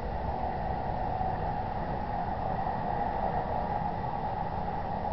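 Steady background hiss and low rumble through a security camera's built-in microphone, with no distinct event.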